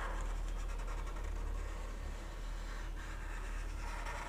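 Felt-tip marker scratching over paper as it traces a circle, the rasp growing stronger again in the last second or so, over a steady low electrical hum.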